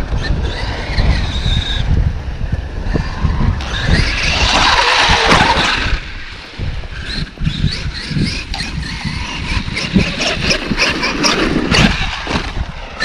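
Traxxas X-Maxx electric RC monster truck running through snow: brushless motor whine rising and falling with bursts of hiss from the tyres throwing snow, over a low rumble.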